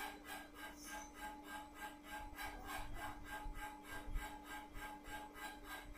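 Diesel pump test bench running a Delphi single-cylinder pump at 100 rpm: a steady hum with a fast, even pulsing of about five beats a second as the pump delivers fuel during manual testing.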